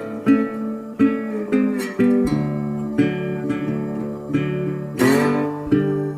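Background music: acoustic guitar strumming and picking chords, with a bright strum about five seconds in.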